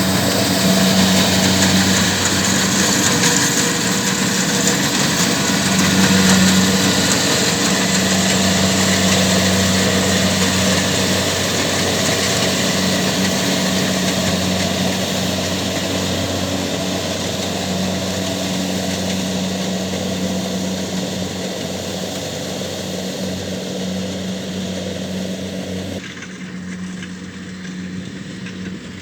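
Kubota DC70Plus combine harvester's diesel engine running steadily under working load, a low even hum with a hiss of threshing and cutting machinery over it. It slowly grows quieter, and the upper hiss drops away suddenly a few seconds before the end.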